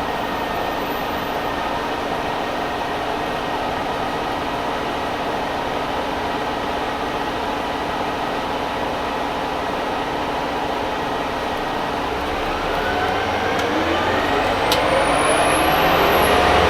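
Orion VII CNG city bus with a Detroit Diesel Series 50G engine and Allison B400R automatic transmission, running steadily, then pulling away about 12 seconds in with its engine and drivetrain whine rising in pitch and growing louder.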